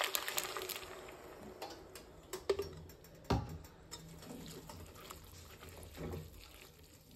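A milk and cream mixture poured over cooked spaghetti in a pot, the pouring hiss ending about a second in; then a fork stirring through the noodles, with two sharp clicks about a second apart.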